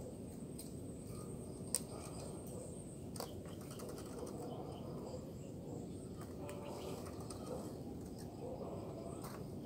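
Spotted dove cooing faintly, soft low coos over a steady outdoor hiss, with one sharp click about two seconds in.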